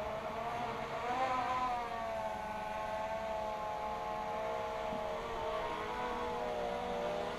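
DJI Phantom 2 Vision Plus quadcopter's four motors and propellers running in flight: a steady whine made of several close tones whose pitch drifts slightly up and down as the motor speeds change.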